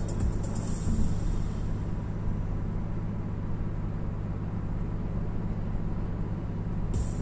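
Steady cabin noise of a 2004 BMW E60 530i cruising on an expressway: a low, even hum from its 3.0-litre straight-six petrol engine mixed with tyre and road noise.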